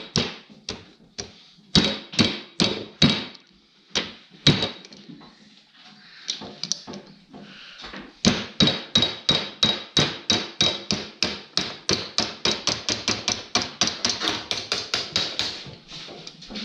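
Repeated hammer blows driving a piston wrist pin out of a two-stroke snowmobile engine's piston instead of using a wrist pin puller. A few scattered strikes, a short pause, then a steady run of about four sharp metallic blows a second.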